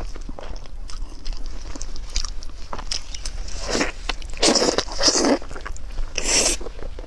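Close-miked eating sounds: wet, sticky biting and chewing of braised meat on the bone, with gloved fingers pulling it apart. There are irregular small clicks and smacks, and a few louder bursts a little past halfway and near the end.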